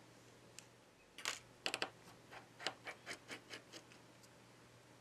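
Faint, irregular small clicks and ticks, about a dozen, of a small hand tool's metal tip touching, catching and prying on the HTC U11's motherboard parts, most of them between one and four seconds in.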